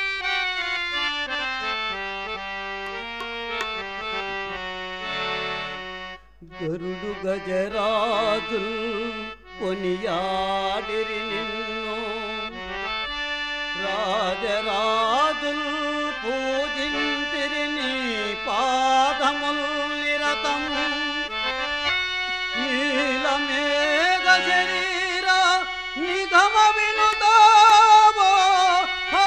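Telugu bhajan music in an instrumental passage between verses. A harmonium-like reed instrument carries a wavering, ornamented melody, with short breaks about six and nine seconds in.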